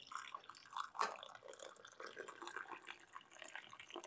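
Hot tea poured in a steady stream from a pot into a mug, splashing as the mug fills; the pouring stops near the end.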